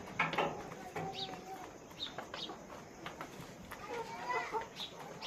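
Chickens calling in a poultry house, with short, high chirps scattered through and a few longer calls about four seconds in.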